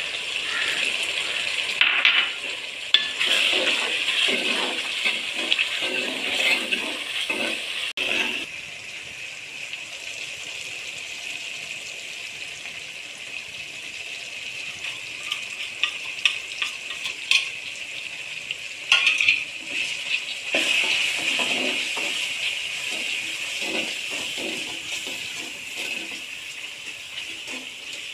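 Chopped onions and tomatoes sizzling in hot oil in a metal pot, stirred with a steel ladle that scrapes and knocks against the pot now and then.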